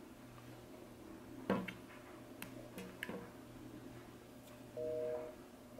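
A telephone busy signal through a phone's speaker: one half-second beep of two steady tones near the end, repeating on and off, meaning the vet's line is busy. Before it, a couple of soft taps as fingers handle the phone on the table.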